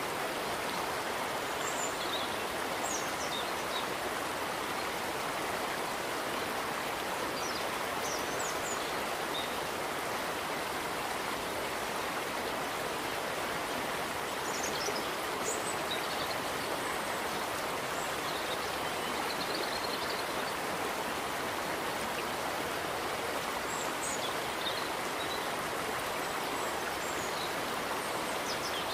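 Swollen River Mersey in flood: a steady rush of fast-flowing water, with a few faint high chirps of small birds scattered through it.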